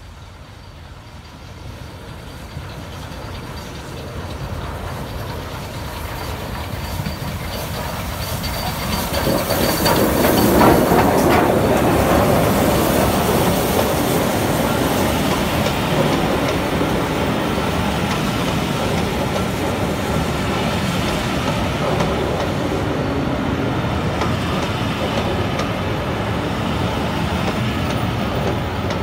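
Steam-hauled passenger train passing: the sound grows louder over the first ten seconds, then the coaches roll by in a steady rumble.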